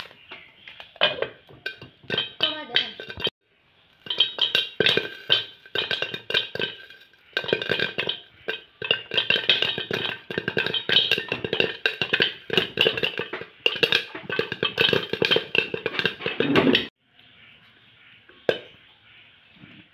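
Popcorn kernels popping in an iron kadai, many rapid irregular pops with metallic clinks as they strike the aluminium lid. The popping breaks off for a moment about three seconds in and stops abruptly near the end.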